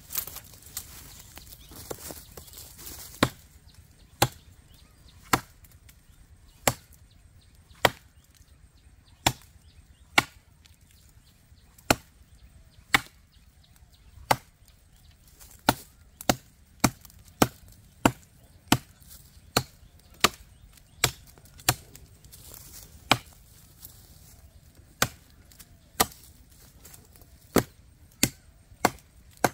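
A 10-inch KRM Bamboo chopping knife with an L6 steel blade hacking into the trunk of a small tree, about two dozen sharp chops. They come roughly one a second, with a quicker run in the middle. The first chop lands about three seconds in, after some rustling.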